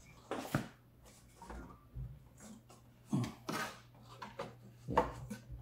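Hands fitting plastic parts back onto the underside of an SLE 6000 ventilator's housing after a battery pack swap: a few separate clicks and knocks, about half a second in, twice around three seconds, and again near the end.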